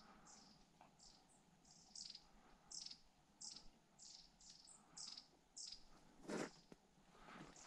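Faint, high-pitched chirping from a small bird, a short downward-sliding note repeated one or two times a second at irregular intervals. About six seconds in there is one louder rustling thump.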